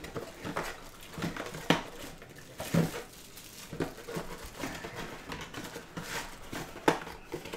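Hands handling a cardboard box and a plastic-wrapped baseball: rustling plastic and light taps and scrapes of cardboard, with a few sharper knocks.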